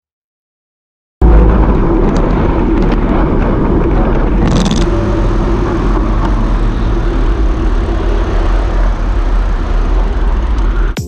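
Wind rushing over a bike-mounted camera's microphone at riding speed, with cars passing on the adjacent highway. It cuts in abruptly about a second in, after a moment of silence, and a brief hiss comes about four seconds in.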